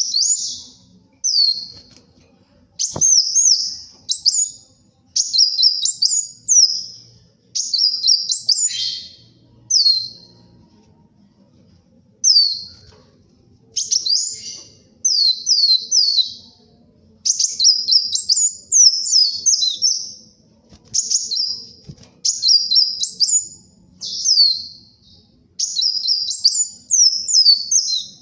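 Kolibri wulung sunbird singing: bursts of rapid, high-pitched twittering phrases, each a second or two long, separated by short pauses, with a longer pause near the middle.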